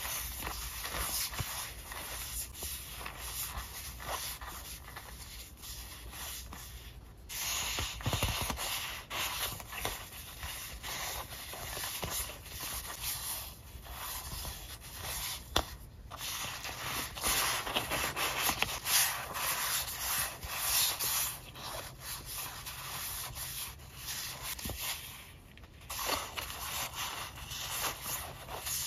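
Paper sticker sheets being shuffled and fanned through by hand: a continuous dry paper rustle and rubbing as the sheets slide over one another, with small sharp flicks and a few brief pauses.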